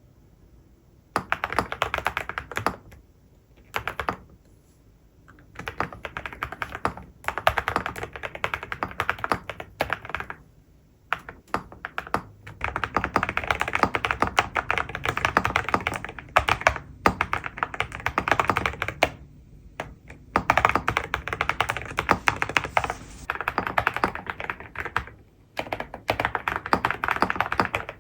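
Typing on an Akko 5098B mechanical keyboard with Cerakey ceramic keycaps and Piano switches: fast runs of keystrokes that begin about a second in and are broken by short pauses.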